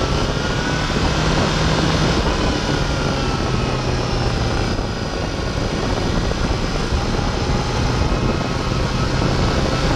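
Yamaha FZ6 sportbike's inline-four engine running at road speed, its note drifting up and down a little, under heavy wind noise on the bike-mounted camera.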